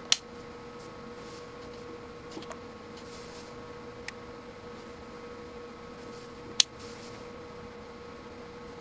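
Two loud, sharp clicks, one just after the start and one about six and a half seconds in, with a few fainter ticks between them, over a steady electrical hum. These are clicks from a multimeter surge-test bench while 2 kV transients are applied to a UNI-T UT-90A meter's terminals.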